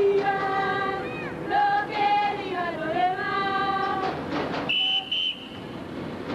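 Voices singing a football chant together, with long held notes that slide up and down. About five seconds in, a short high-pitched tone sounds twice in quick succession.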